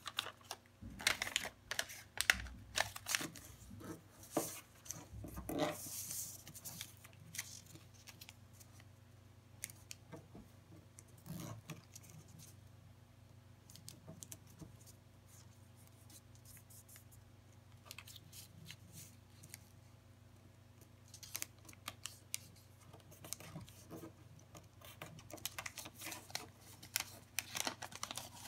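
A sheet of paper being folded and creased by hand into an origami popper: irregular rustling and sharp crackles as the paper is bent and pressed flat. The handling is busiest for the first several seconds and again near the end, with only scattered rustles in a quieter middle stretch.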